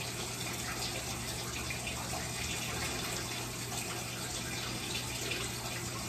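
Water running steadily from a bathtub tap.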